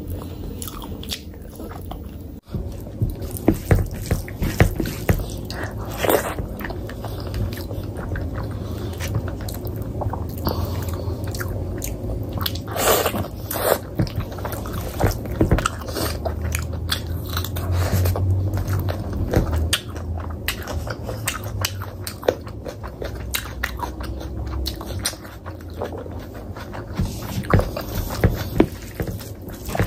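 Close-miked eating of mutton curry with rice by hand: chewing, biting and wet mouth smacks in many short clicks, with squelching as fingers work the rice into the gravy.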